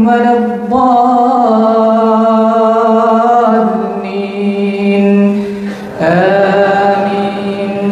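A man's voice chanting Quranic recitation in prayer. He draws out long held notes, with one steady note lasting about four seconds before a new phrase begins near the end.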